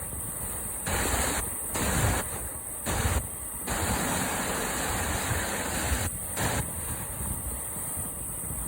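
Rushing whitewater on a river rapid, with several louder surges of splashing water between about one and six and a half seconds in.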